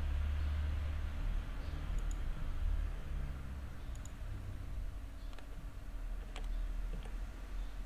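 A few isolated clicks of a computer mouse, spaced one to two seconds apart, over a steady low electrical hum.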